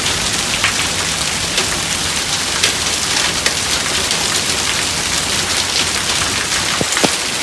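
Heavy rain mixed with hail pelting down: a dense, steady hiss scattered with many sharp ticks of hailstones striking.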